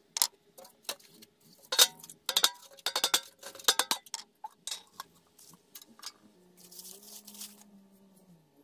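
A hammer striking a rusty axe head: a quick, irregular run of sharp metallic clinks and taps. Near the end comes a short crinkle of dry old paper as the axe head is handled in its wrapping.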